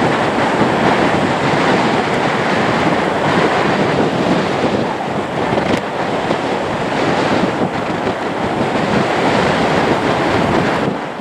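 Steady roar of a Lockheed Martin C-130J Hercules's four turboprop engines as it taxis, mixed with wind buffeting the microphone.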